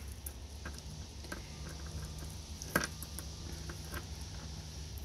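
Small clicks and light clinks of fine silver necklace chains being handled and picked apart by fingers, with one sharper click a little under three seconds in, over a low steady hum.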